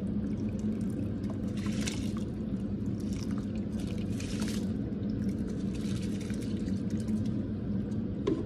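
Rice and water poured from a bowl into a pot of boiling water, splashing and bubbling in uneven bursts over a steady low hum.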